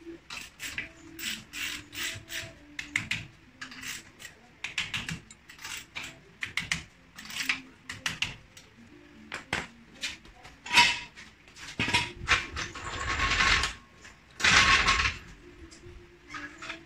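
Quick metallic clicks and clatter of hand tools working the wheel nuts, much like a ratchet wrench. About three-quarters of the way through come two longer, louder rattling stretches as a steel floor jack is moved into place on the concrete.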